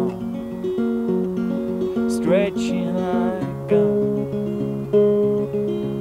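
Levin acoustic guitar playing an instrumental folk passage: picked notes and chords ringing over one another, with no singing.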